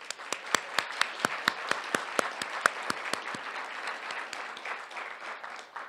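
Audience applauding, with one person's hand claps close to the microphone standing out as sharp, even claps about four a second. The applause dies away near the end.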